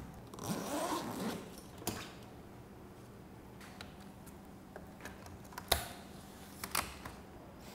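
Light scattered clicks of laptop keys being typed on, and sharper clicks from the laptop's DVD drive tray being handled. The loudest is about two seconds before the end, followed a second later by a quick double click. A brief soft rustle comes near the start.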